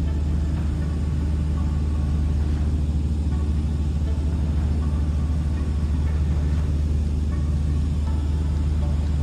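Socata TB-series light aircraft's four-cylinder piston engine and propeller running steadily in cruise, a loud, even, low drone.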